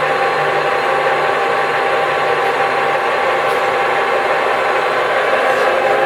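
ENCO 13 x 40 inch bench lathe running steadily under power, its gear train whining at a constant pitch with the longitudinal power feed engaged and driving the carriage.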